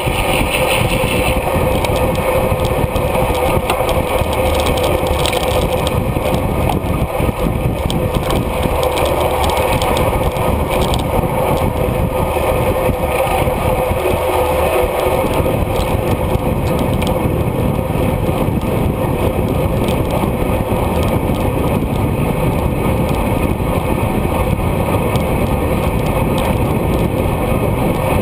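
Steady loud rush of wind and tyre noise on a bicycle-mounted GoPro's microphone as a road bike is ridden at racing speed.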